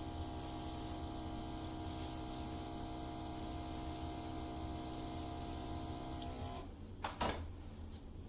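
Hairdryer running steadily, its motor whine under a hiss of blowing air, used to blow acrylic paint across a canvas in a Dutch pour; it winds down and stops about six and a half seconds in. A couple of short knocks follow soon after.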